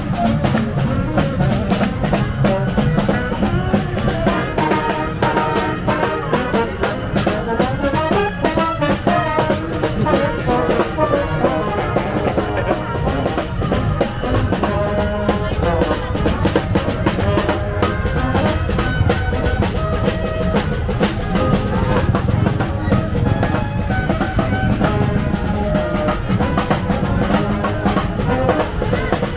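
Live street band playing: brass and saxophone carrying the tune over a steady drum beat.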